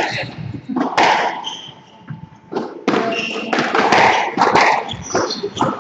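Squash ball struck by rackets and smacking off the court walls in a rally: sharp knocks about a second apart. Short shoe squeaks on the wooden court floor come in between.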